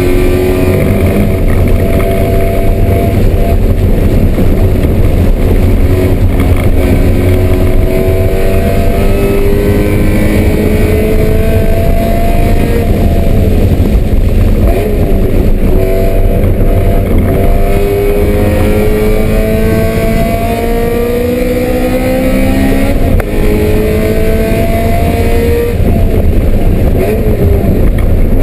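BMW M3 engine running hard under load, its pitch rising over two to three seconds and dropping at each gear change, again and again, over a heavy low rumble.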